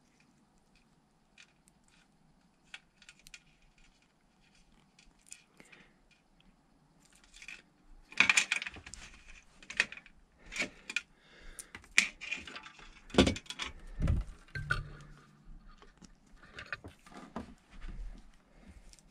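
Handling noise from an LED light strip and its plug lead: small clicks and rustles, sparse and faint at first, then a denser run of louder clicks and knocks through the second half.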